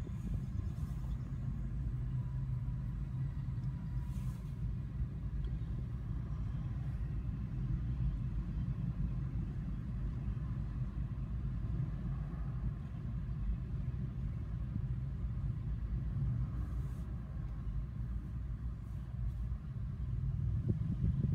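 Freight train of autorack cars rolling past, its wheels on the rails making a steady low rumble.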